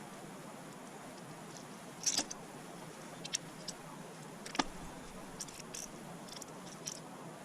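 Scattered light clicks and clinks from hand tools and engine parts being handled, with a sharper clatter about two seconds in, over a low steady hiss.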